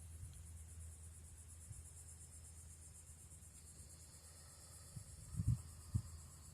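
Steady high-pitched insect chorus with a fine pulsing texture, over a low rumble, with a few dull low bumps about five to six seconds in.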